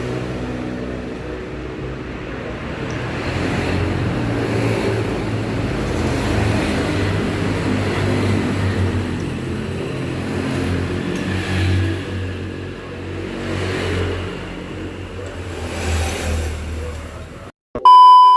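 Honda Vario scooter engine running, with the revs rising briefly several times in the second half. The engine sound cuts off suddenly near the end and is followed by a short, loud electronic beep.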